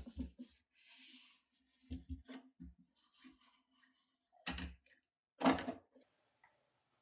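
Scattered light taps, clicks and rubbing from hands handling small watch parts and tools at a bench, with two louder knocks about four and a half and five and a half seconds in.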